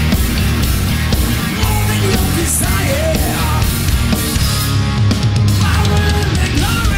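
A heavy rock band playing live: seven-string electric guitar, electric bass guitar and drum kit in a loud, continuous instrumental passage.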